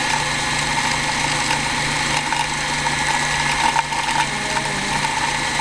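Vintage Kenmore Model 13450 sewing machine running steadily with its foot pedal held down, its motor driving the bobbin winder as thread winds onto the bobbin.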